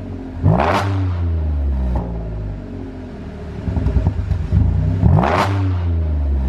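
Audi A6 3.0 TFSI V6 revved twice in quick blips. As the revs fall after each blip, the exhaust pops and crackles on the overrun, the effect of a pop-and-bang tune.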